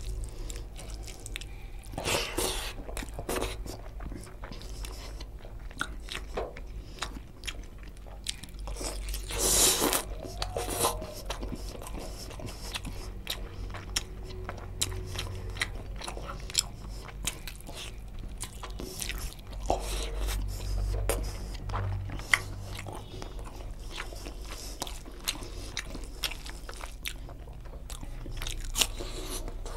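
Close-miked eating sounds of a person eating chicken curry and rice by hand: chewing, biting and crunching, with many short wet clicks and a few louder bites.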